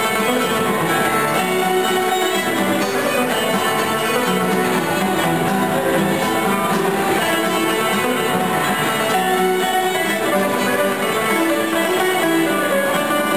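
Live ceilidh band playing a march tune: two fiddles carry the melody over strummed acoustic guitar, a plucked mandolin-type instrument and a bodhrán keeping the beat.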